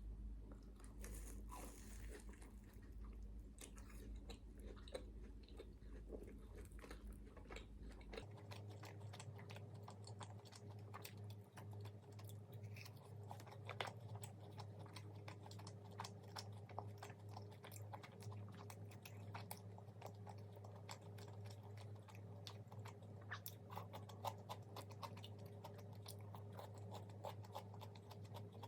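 Close-miked chewing and crunching of crispy fried food, many small irregular crackles and mouth clicks. A low steady hum runs underneath and shifts in pitch about eight seconds in.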